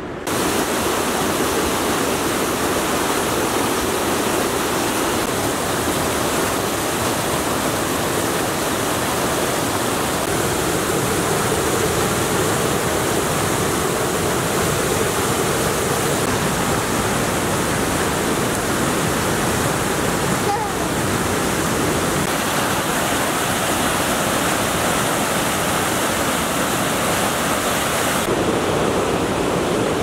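Tomara Waterfall's white water rushing and cascading over rocks in heavy flow, a steady loud rush whose tone shifts slightly about halfway through and again near the end.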